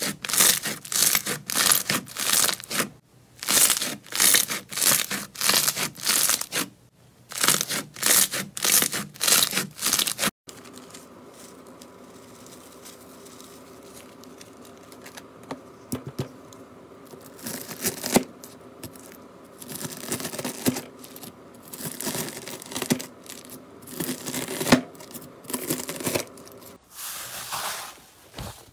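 Hands squeezing, stretching and poking slime close to the microphone: loud, noisy sticky strokes, about two a second. About ten seconds in, the sound changes abruptly to quieter handling with scattered clicks and pops over a faint steady hum, swelling again in the second half.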